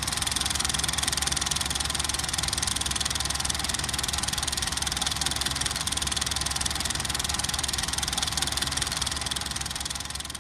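Film projector running: a steady, fast, even mechanical clatter.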